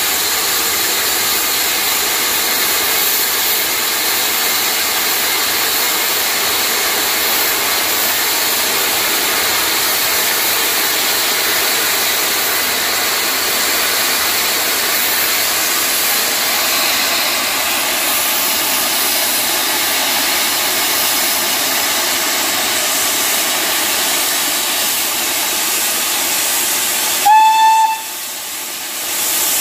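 Steam locomotive hissing steadily as steam escapes. Near the end comes a short single-note whistle blast, after which the hiss drops away for a moment before returning.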